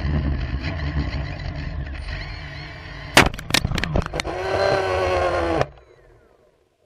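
A 3DR Iris quadcopter falling with its motors shut down, after its two barometers disagreed: a steady rushing noise, then a crash with several sharp impacts about three seconds in. A steady pitched tone follows for about a second and a half, then cuts off suddenly.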